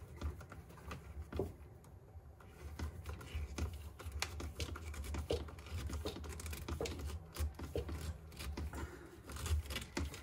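Screwdriver turning the worm screw of a hose clamp, tightening the dishwasher drain hose onto the garbage disposal's inlet: faint, irregular small clicks and scraping.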